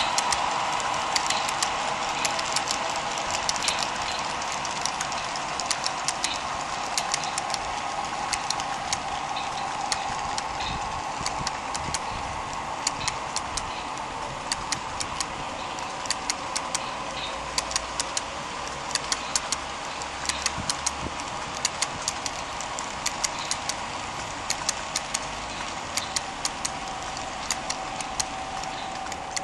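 HO scale model freight train rolling past: the metal wheels click rapidly and unevenly over the rail joints over a steady whirring hum of the rolling train, which slowly fades as the train moves on.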